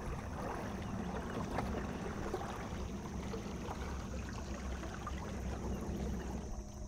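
Water lapping and swirling in the wash of a small aluminium boat as it turns and passes close by under an electric trolling motor, over a steady low hum.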